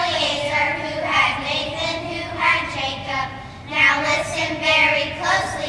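A class of young children singing together as a group.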